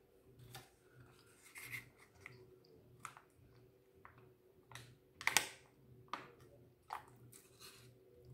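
Chewing fries and chicken wings, with scattered short mouth clicks and crackles, the loudest a sharp crackle about five seconds in.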